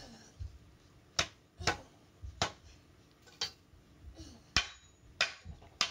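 Sharp wooden knocks, about seven at uneven intervals, as the back leg of a wooden baby gym frame is hammered into place.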